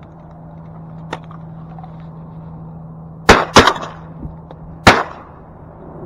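Three shotgun blasts fired at incoming black ducks: two in quick succession about three seconds in, a third a little over a second later.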